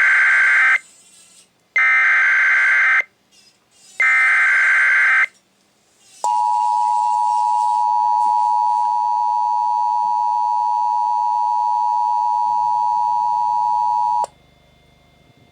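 Emergency Alert System signal from a Sage EAS ENDEC. The SAME data header comes as three harsh, buzzy bursts, each about a second long. About six seconds in, the steady two-tone EAS attention signal starts and holds for about eight seconds before cutting off.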